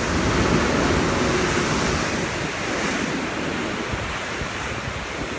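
Heavy surf breaking and churning against volcanic rock cliffs, a steady rush of whitewater. It is loudest in the first two seconds and eases off toward the end.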